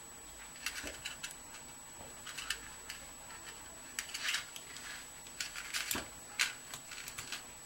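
Irregular light clicks, taps and short rustles of small hand tools and craft materials being handled on a work table, the sharpest tap a little after six seconds in, over a faint steady high whine.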